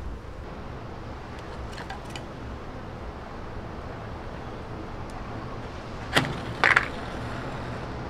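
A match struck against a matchbox: two quick rasping scrapes a little past halfway, the second one lighting it. A few faint clicks of kindling being handled come before.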